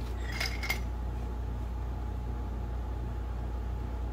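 A few light metallic clinks about half a second in, from metal tools being handled at the jack, then a steady low hum.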